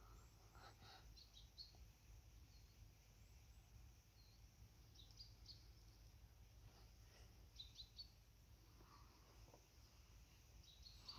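Near silence: faint outdoor ambience with a few faint, short bird chirps scattered through it.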